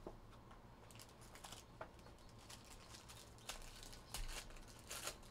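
Faint crinkling and rustling of a foil trading-card pack wrapper and cardboard box being handled and torn open by hand, with a few sharper crackles near the end.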